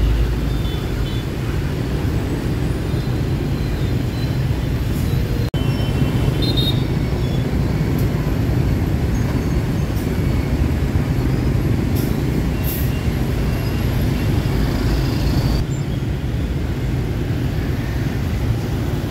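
Steady city street traffic noise, a continuous low rumble of passing engines.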